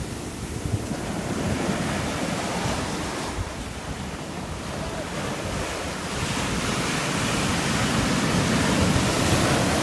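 Ocean surf breaking on the shore, the roar swelling and easing, then building to its loudest near the end as a wave comes in. Wind buffets the microphone underneath.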